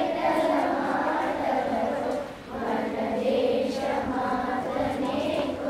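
Children's choir of boys and girls singing a prayer song together in long, held notes, with a short pause between lines about two and a half seconds in.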